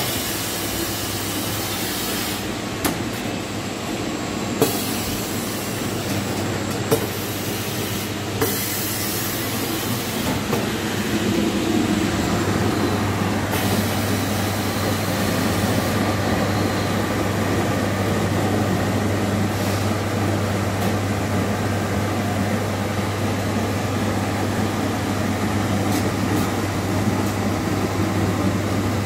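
Shrink wrapping machine running with a steady low hum and mechanical rattle from the heat shrink tunnel and its wire-mesh chain conveyor. There are a few sharp clacks in the first ten seconds, and the hum grows a little louder about eleven seconds in.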